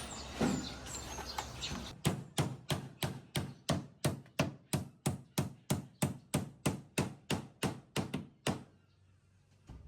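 A rapid, steady run of hammer blows, about three a second, starting suddenly about two seconds in and stopping near the end.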